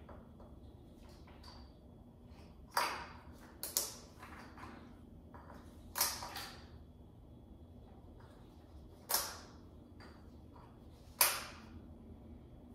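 Hand work on an engine on a dyno stand: about six sharp clicks and clanks a second or more apart, each ringing briefly, over a faint steady hum.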